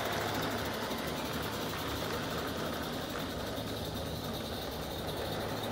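Small live-steam garden-railway locomotive running on 45 mm gauge track, pulling its train: a steady running and steam noise with no sudden changes.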